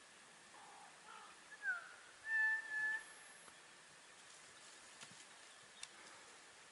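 A high-pitched animal call: a few short sliding notes, then a louder held note lasting under a second with a shorter one right after it. A couple of faint clicks follow.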